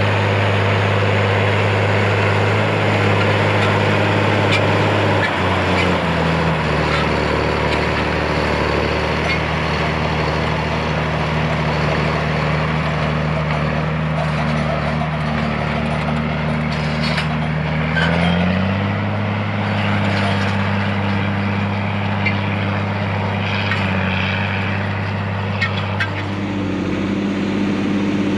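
Farm tractor's diesel engine running steadily under load. It slows to a lower pitch about five seconds in and climbs back up to its working speed near the eighteen-second mark.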